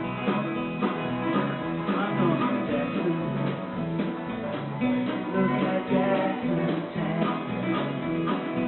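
A small live band playing: acoustic guitars strumming over a steady beat, with other instruments and a little singing, heard through the room.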